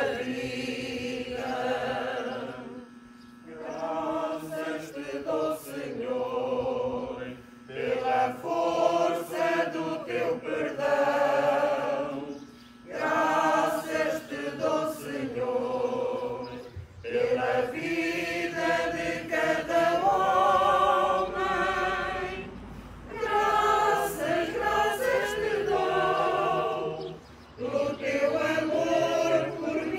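Congregation singing a Catholic hymn together, in phrases of a few seconds with short breaks between them.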